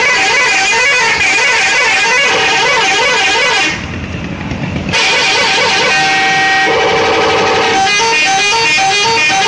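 Indonesian bus 'telolet' musical horn playing a multi-note tune, breaking off for about a second near the middle before resuming.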